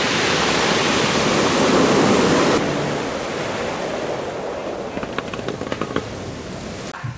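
Ocean surf breaking and washing through the shallows. After a cut it is quieter water on a pebble beach, with a few light clicks about five to six seconds in.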